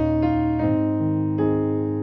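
Piano sound from a digital workstation keyboard playing a hymn in two-handed chords, with a bass line under them. A new chord is struck at the start, another a little past half a second in, and a third near 1.4 seconds, each ringing on until the next.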